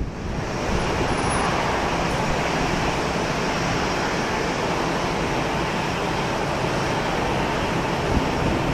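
Boeing 747-8's four GEnx-2B jet engines at takeoff power, a steady, even roar that holds level throughout.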